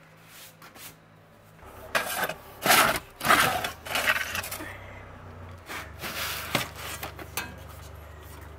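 Metal bread peel scraping and clinking on the floor of a wood-fired oven as loaves are slid out. The short scrapes come in a cluster about two to four seconds in, and again around six seconds.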